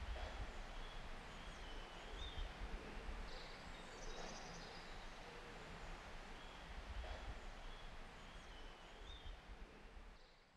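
Faint woodland ambience: birds chirping in short, repeated rising phrases over a low steady rumble and hiss, fading out near the end.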